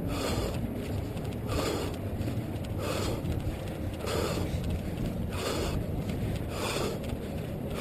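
Running noise from a head-mounted GoPro Hero 2 action camera: a steady low rumble of jostling and wind on the housing while its wearer runs, with a hissy burst repeating about every second and a quarter in time with the stride.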